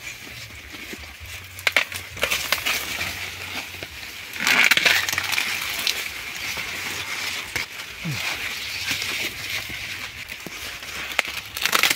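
Corn stalks being worked by hand as ears of corn are snapped off: dry leaves and husks rustling, with sharp cracks as the ears break free. The loudest stretch of rustling comes about four seconds in.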